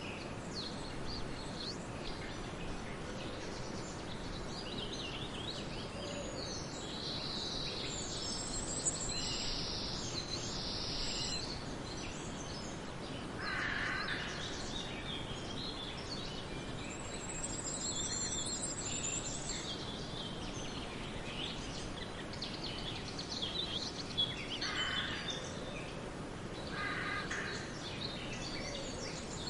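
Several birds chirping and calling over a steady background hiss, with a few high trills and some lower, louder calls about halfway through and again near the end.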